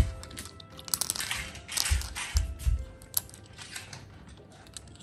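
Asian small-clawed otter gnawing and licking a hard, candy-shaped toy, making irregular clicking and crunching sounds, with background music underneath.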